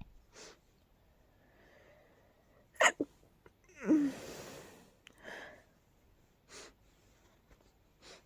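A person stifling sneezes through a tickly nose: a sharp, clipped sneeze about three seconds in, then a longer, breathy sneeze a second later, with short breaths in between.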